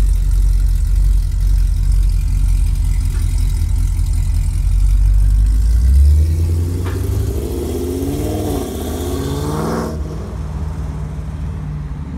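Chevy SS V8 exhaust idling with a deep, steady note, then blipped several times about halfway through, the pitch rising and falling with each rev before it settles back to idle.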